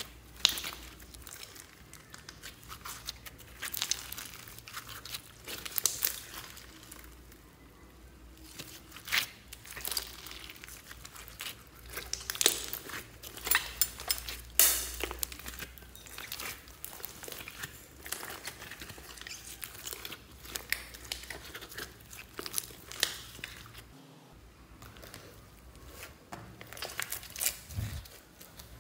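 Slime mixed with clay and small foam beads being squeezed, pressed and stretched by hand, giving irregular clicks and pops.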